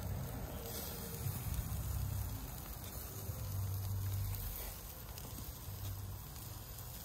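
Chicken thighs sizzling over hot charcoal on a kettle barbecue grill: a steady hiss, with a low uneven rumble underneath.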